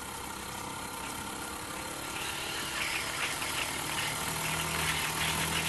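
Small Microcosm V-twin model steam engine running on steam from a handheld steam cleaner, with a steady steam hiss and rapid fine exhaust beats. The hiss and beats grow louder from about two seconds in as the steam cleaner is turned up from its lowest heat setting to position two, and a low steady hum joins about four seconds in.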